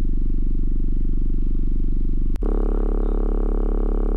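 Car subwoofer enclosure with passive radiators playing a steady deep bass tone with a mechanical vibrating, flopping buzz over it. About two seconds in it cuts with a click and comes back louder and harsher. The noise comes from a failing passive radiator whose gasket is coming apart.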